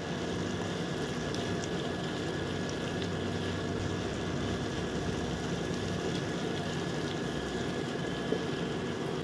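Sliced onions sizzling gently and steadily in mustard oil in a nonstick pan over medium heat. Underneath is a steady hum from the induction cooktop.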